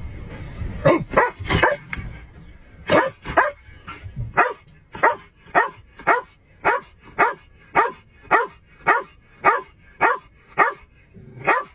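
A dog barking over and over: a few scattered barks at first, then from about four seconds in a steady, evenly paced run of about two barks a second.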